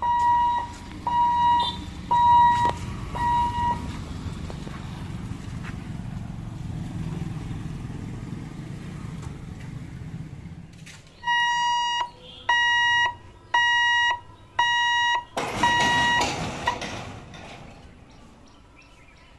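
Level-crossing gate warning hooter beeping, about one beep a second, as the lifting barrier is lowered to close the road. The beeping stops for about seven seconds, with a low rumble in between, then comes back louder. A loud rushing noise lasts about a second near the end of the beeping.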